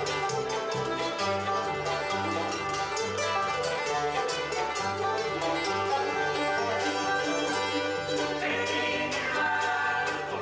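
Bluegrass band playing live. Banjo picking runs over a steady upright-bass line that alternates between notes, with fiddle, mandolin and acoustic guitar.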